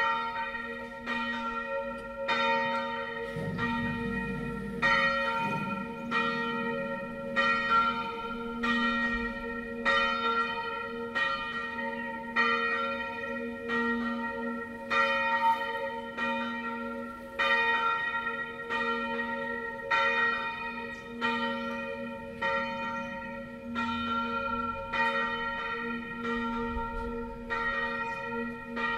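A single church bell, bell IV of a six-bell Tyrolean-style peal, a B-flat bell cast by Achille Mazzola in 1928 (80 cm, 276 kg), swinging full circle and striking evenly about every 1.2 seconds, its tone ringing on between strokes.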